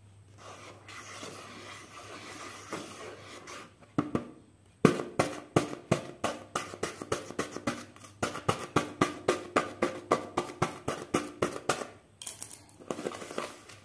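A metal blade slicing through a sheet of paper laid over a card: a scratchy scrape at first, then a run of quick, sharp cuts about three a second, and a brief brighter paper rustle near the end.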